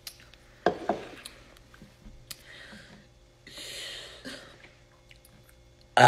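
Quiet mouth and throat noises from a woman getting ready to burp: a couple of sharp clicks or gulps, then a soft breathy hiss. Right at the very end a loud open-mouthed burp begins.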